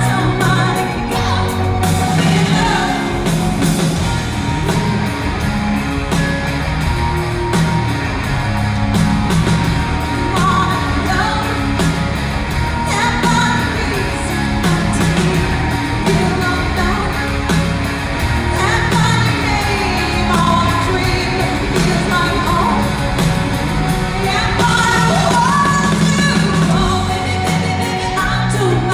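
A rock band playing live: electric guitars and drums, with a woman singing over them. It is heard as a phone-style audience recording in a large theatre.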